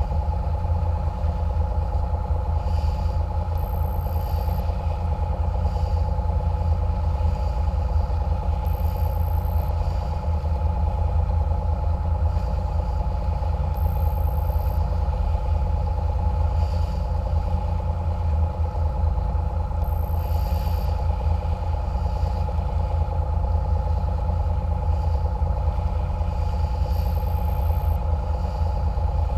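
A catamaran cruiser's engines running steadily under way, heard from the bow as a loud low rumble with a steady hum over it.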